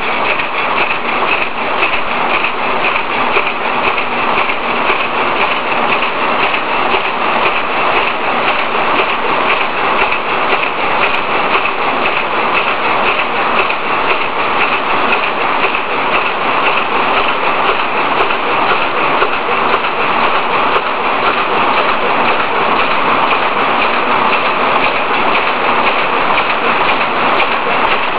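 Plastic bag-making machines with flat stackers running: a loud, dense, steady mechanical clatter and hiss with no break.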